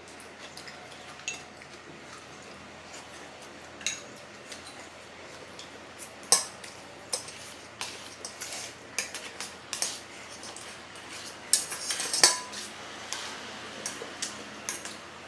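Eating utensils clicking and clinking against a bowl at irregular intervals, with the sharpest clinks about six seconds in and near twelve seconds, the last ringing briefly.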